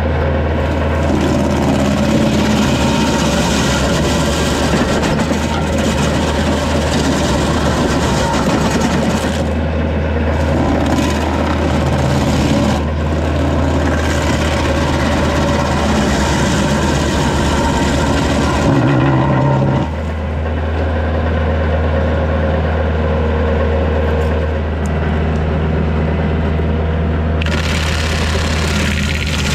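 Woodland Mills WG24 PTO stump grinder's toothed cutter wheel grinding into a red pine stump and spraying chips, over the steady drone of the tractor's diesel engine driving it. The rasp of the teeth in the wood eases off for several seconds past the middle, leaving mostly the engine, then picks up again near the end.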